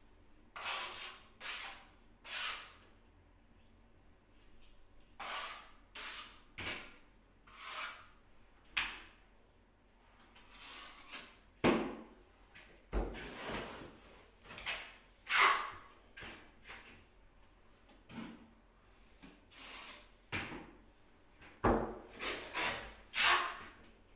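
Trowel scraping and spreading tile adhesive across a wall board in repeated short, irregular strokes.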